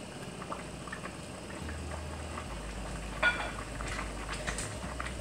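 Spaghetti cooking in a pan of water on the stove: the water bubbling with a steady low hiss while a wooden spatula stirs, with scattered small taps and one sharper knock about three seconds in.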